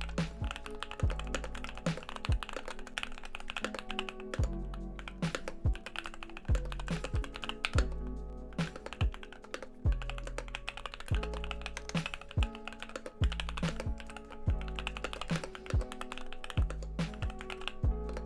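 Typing on a Keychron Q2 mechanical keyboard with Banana Split linear switches and PBT keycaps: irregular clacking keystrokes several times a second. Background music plays underneath.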